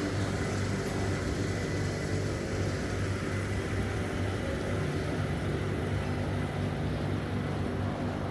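Street ambience dominated by a steady low engine hum from a motor vehicle running nearby, with a slightly higher drone joining about halfway through.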